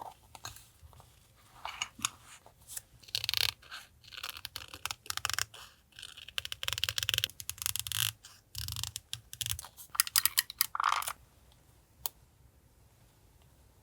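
Paper and stickers being handled up close for a journal collage: irregular crinkling, rubbing and peeling in quick bursts that stop about eleven seconds in.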